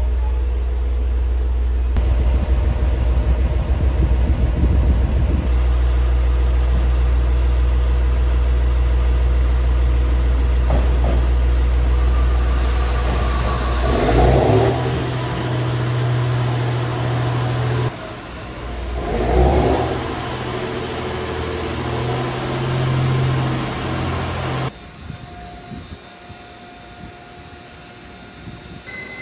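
Train engines running at a station, a steady low drone. The engine note shifts abruptly at several cuts, with two short louder bursts in the middle.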